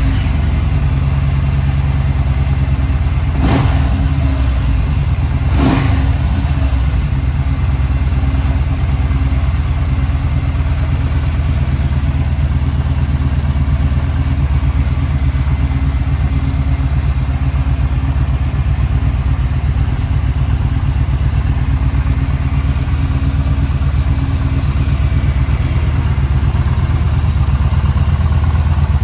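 Stock 2017 Yamaha SCR950's air-cooled V-twin running steadily at idle just after starting, with two brief louder moments about three and a half and six seconds in.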